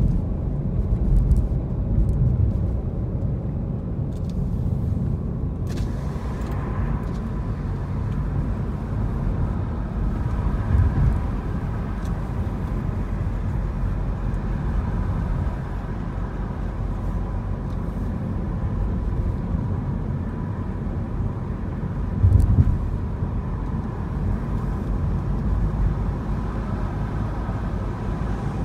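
Car driving, a steady low rumble of engine and tyres on the road, with two brief louder low bumps about eleven and twenty-two seconds in.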